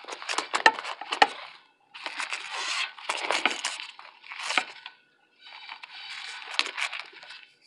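Paper wrapping being peeled and torn off a baked cornstarch brick, crinkling and crackling in about four bursts with short pauses between.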